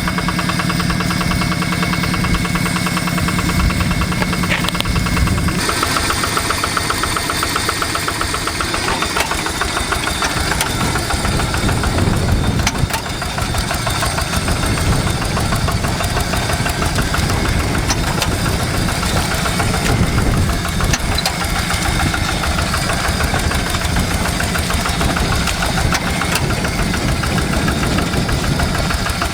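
Diesel farm-machine engine running steadily with a fast, even beat, its tone shifting about five seconds in.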